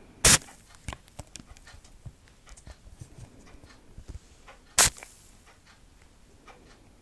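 Two loud, sharp clicks, one just after the start and one near five seconds in, with faint small taps and ticks between: an ASMR trigger object being handled close to the microphone.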